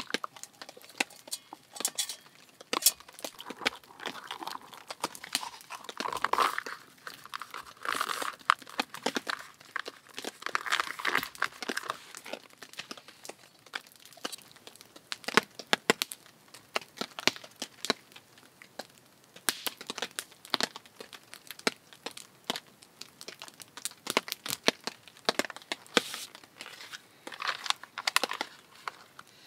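A freeze-dried meal pouch crinkling and rustling as it is handled, with many scattered sharp clicks and taps.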